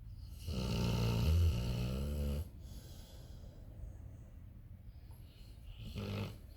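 Dog snoring: one long pitched snore of about two seconds, then a shorter one near the end, with quiet breathing between.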